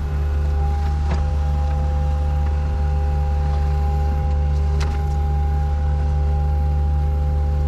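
An engine running steadily with a low hum and a faint high whine over it, and a couple of short knocks.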